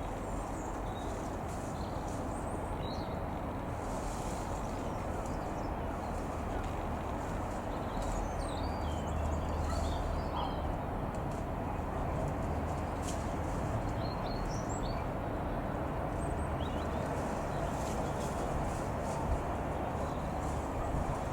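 A steady low outdoor rumble with small birds chirping now and then above it. The rumble swells slightly around the middle.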